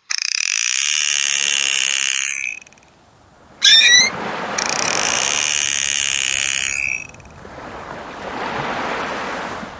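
Dolphin calls: two long buzzing squeals, each lasting about two and a half seconds, with a short wavering whistle between them. A rushing hiss runs underneath and swells near the end.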